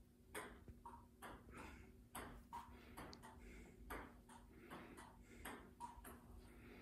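Table tennis rally: a celluloid ping pong ball clicking back and forth off paddles and the table, about two to three faint, sharp hits a second, some with a short ringing ping.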